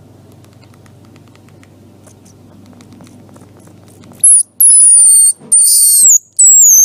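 Baby squirrel squealing: four piercing high-pitched squeals starting about four seconds in, the first short and the next three longer, each sliding down in pitch. A faint low hum comes before them.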